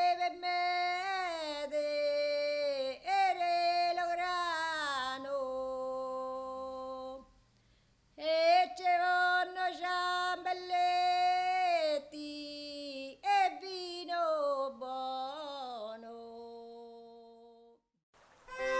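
A woman singing unaccompanied: two long melodic phrases, each ending on a held lower note, with a short break about seven seconds in.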